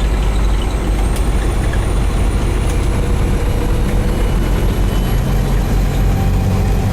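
Heavy truck engine idling with a steady low rumble.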